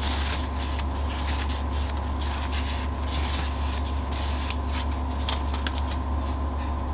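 Paper towel rustling and rubbing along thin model railway rails as they are wiped clean with isopropyl alcohol, in short irregular strokes, over a steady low hum.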